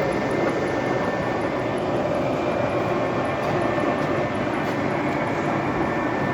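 Steady din of a metalworking workshop at work, with a faint high whine running under it.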